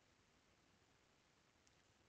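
Near silence: faint room tone, with one very faint click near the end.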